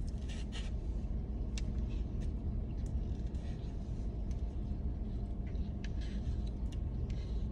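Steady low rumble of a car cabin, with faint scattered clicks and light scrapes from a plastic food container and utensil as sausage gravy is spooned onto a biscuit.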